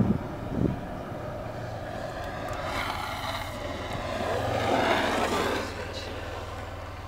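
Longboard wheels rolling over rough asphalt: a steady rumbling hiss over a low hum, swelling to its loudest about five seconds in as the board passes close, then easing off.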